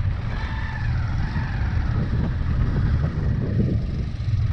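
A motor vehicle's engine running close by, with a steady low rumble and a faint sliding whine in the first couple of seconds.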